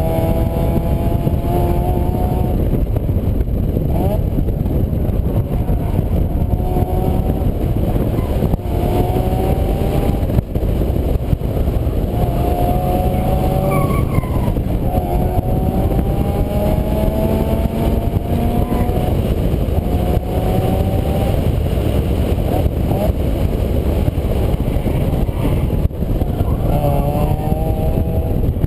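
Vehicle engine under acceleration, its pitch climbing for a second or two, dropping back and climbing again as it shifts up through the gears, about ten times, over a heavy steady rumble.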